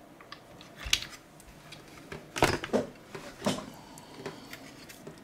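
Clicks and knocks of the ISO-TECH IDM91 multimeter's circuit board and plastic case being handled as the board is pressed down onto its socket pins. There is a knock about a second in, a loud cluster of clicks at about two and a half seconds, and another knock near three and a half, with lighter ticks after.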